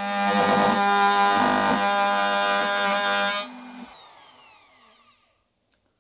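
Compact electric trim router running at full speed while cleaning up the edges of a plywood box. It is switched off about three and a half seconds in, and its whine falls away as it spins down and fades out.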